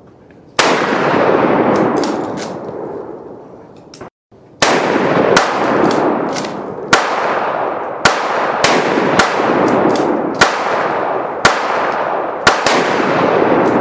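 Gunshots on a firing line: about a dozen sharp reports at uneven intervals, each trailing a long echoing tail that overlaps the next. The sound drops out briefly about four seconds in.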